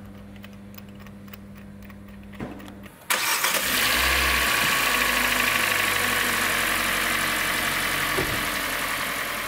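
Freshly rebuilt Kia G4NA engine's first start: it catches abruptly about three seconds in and settles into a steady fast idle that slowly grows quieter, running well.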